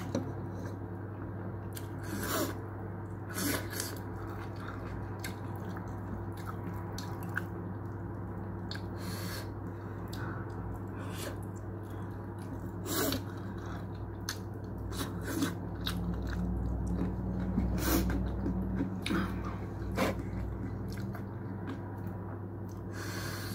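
Close-up chewing and mouth sounds of a person eating shawarma by hand: soft wet smacks and clicks scattered throughout. A steady low hum sits underneath.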